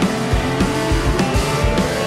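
Garage punk rock music with electric guitar over a steady beat of about four a second, and one note slowly rising in pitch.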